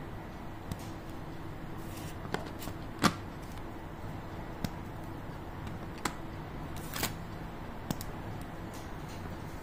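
Scattered light clicks and taps as squares of dark chocolate are handled and set against the cardboard box and wrapper, about seven in all, the sharpest about three seconds in, over a steady low hum.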